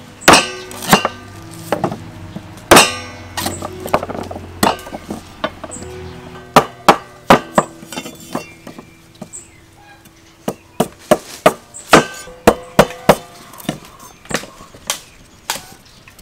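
A cleaver chopping pale plant stalks on a round wooden chopping board: sharp knocks at an uneven pace, a few at first, then a quicker run from about six seconds in, over background music.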